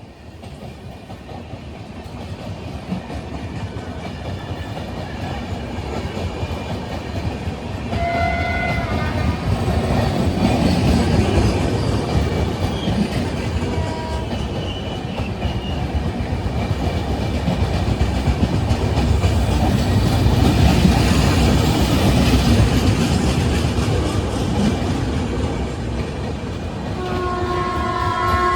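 Train rolling past with wheel clatter and a rumble that grows louder, peaking around ten and again around twenty seconds in. The horn of a WAP-7 electric locomotive sounds in a blast about eight seconds in, a short toot around fourteen seconds, and a longer blast near the end.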